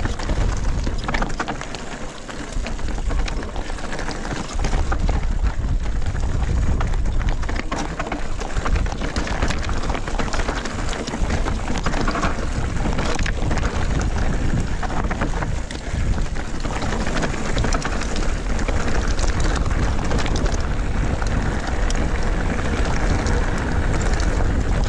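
Mountain bike rolling fast over loose slate and gravel: tyres crunching on stones, with the bike rattling and clicking over the rough ground and wind buffeting the microphone.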